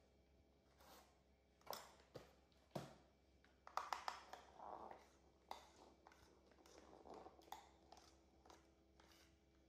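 Metal spoon clicking and scraping against a ceramic bowl as dry pancake mix is stirred: a scattering of light, sharp taps, a few in quick succession about four seconds in.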